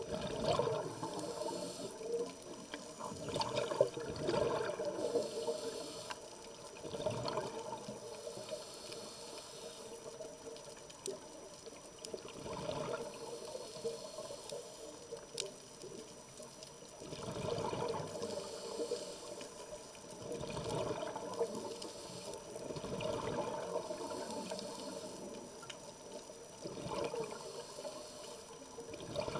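Underwater scuba breathing through a regulator: the diver's exhaled bubbles bubble out in bursts every few seconds, with quieter stretches between breaths.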